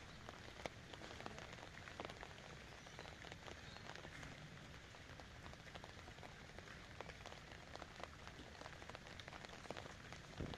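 Light rain falling steadily, with many scattered single drops ticking through it.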